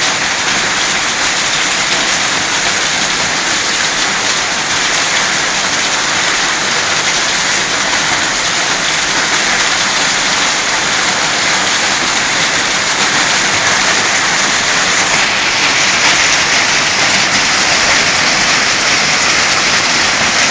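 Heavy hailstorm: large hailstones pelting down and hitting the ground and surfaces around in a dense, steady din.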